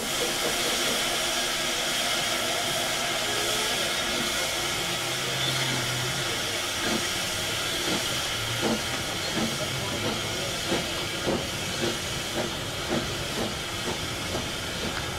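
Narrow-gauge steam locomotive hissing steam loudly and steadily. From about halfway, sharp clicks and knocks join in, about one or two a second.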